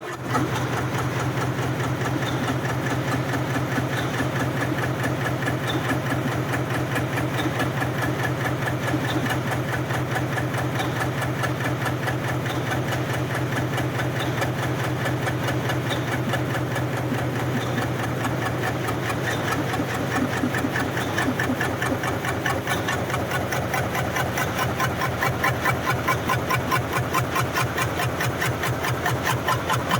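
125-ton H-type fin press running a fin die at about 280 strokes a minute, stamping heat-exchanger fins: a rapid, even stamping rhythm over a steady low hum. The beats grow more pronounced in the last few seconds.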